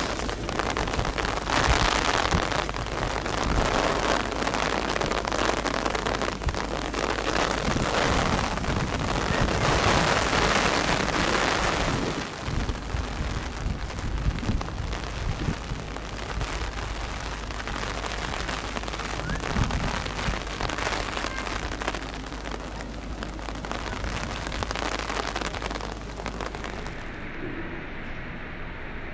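Rushing noise of heavy rain mixed with the jet roar of a Boeing 777-300ER's GE90 engines as it rolls out on a soaked runway. It is loudest for the first twelve seconds, then eases off to a steadier rain hiss.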